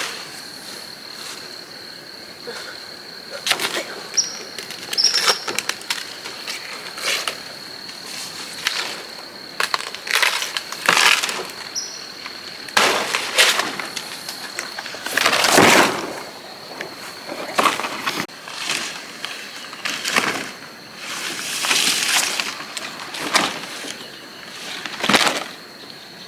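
Irregular scraping and crunching sounds, one every second or two, the loudest about two thirds of the way through, over an insect's steady high-pitched buzz.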